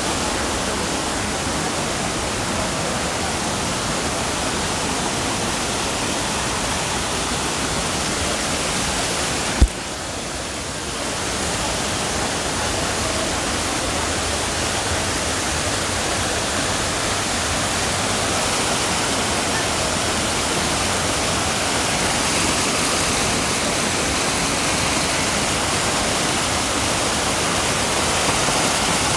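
Steady rush of a natural freshwater waterfall. A single sharp click about ten seconds in, after which the sound briefly drops and comes back.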